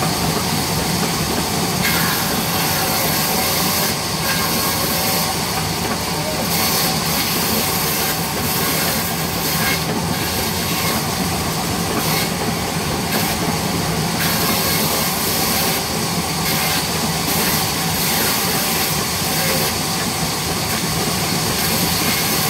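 A sawmill band saw running steadily while wooden slabs are fed through its blade. The cutting noise grows harsher in stretches of a second or two as the blade goes through the wood.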